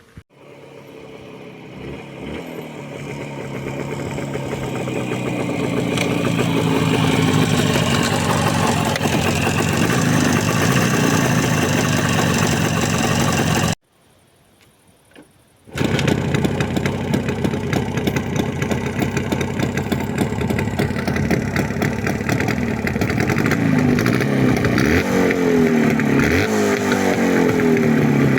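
Jawa 350 motorcycle engine under way while riding. It builds up over several seconds, runs steadily, breaks off for about two seconds, then comes back with the engine pitch rising and falling near the end.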